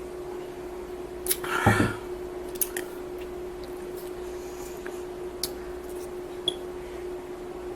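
Soda being drunk from a cup: a gulp with a slurp about a second and a half in, then a few faint clicks and taps from handling the cup or bottle, over a steady hum.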